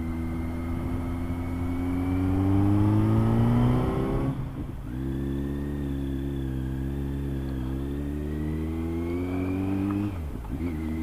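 Kawasaki Z900's inline-four engine under acceleration: the revs climb, drop with an upshift about four and a half seconds in, climb again more gently and drop with another upshift near the end.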